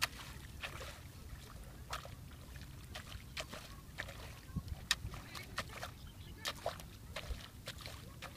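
Hoe chopping into wet mud in shallow water: repeated, irregular wet strikes and splashes, several a second at times, over a steady low rumble.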